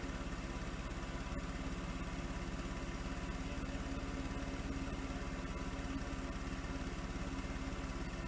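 1989 Volvo 240's engine running steadily at low revs, heard from outside the car, with a steady whine over its even pulse.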